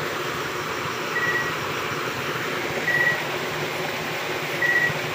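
Steady rush of water at a dam, with a short high beep repeating about every two seconds.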